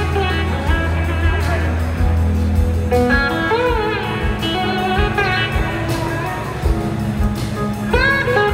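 Live blues-rock band playing: an electric slide guitar plays a lead line of gliding, wavering notes over bass and drums.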